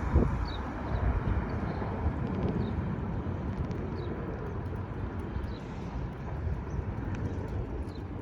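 Steady low rumble of an Airbus A320-232's jet engines.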